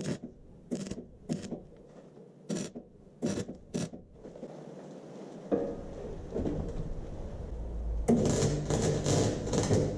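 Electric arc welding on steel. A few short crackling bursts as the arc is struck and broken in the first four seconds. A hum builds after about five and a half seconds, and a steady crackling weld runs from about eight seconds in.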